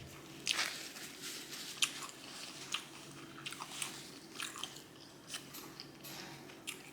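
Close-miked biting and chewing of crispy Popeyes fried chicken skin: a run of irregular sharp crunches, the loudest about half a second in and near two seconds, between quieter wet chewing.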